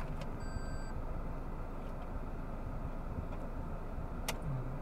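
Toyota Hilux's diesel engine running low and steady, heard from inside the cab. A short electronic beep sounds about half a second in, and there is a single click near the end.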